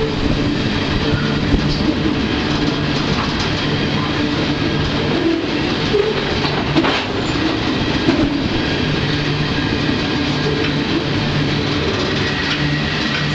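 Freight train running on the rails, heard from aboard a car: a loud steady rumble and rattle of wheels and car body, with scattered sharp knocks.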